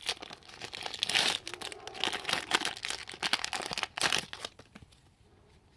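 Crinkling and rustling of a foil trading-card pack wrapper and cards being handled, a busy run of crackles and small clicks that dies down about four and a half seconds in.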